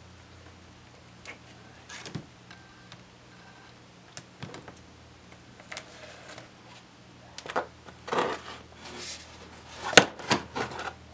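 Painting supplies handled on a worktable: scattered clicks and knocks of jars, brushes and tools being picked up and set down. The knocks grow busier in the last few seconds, with the loudest one near the end, over a steady low hum.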